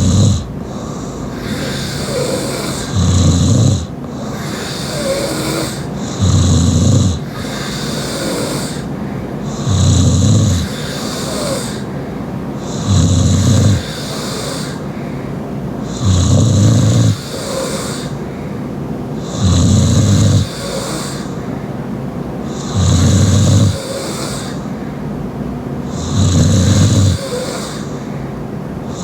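Loud, open-mouthed snoring from a sleeping young woman: a rough, low rattle just under a second long, repeating evenly about every three seconds, nine times.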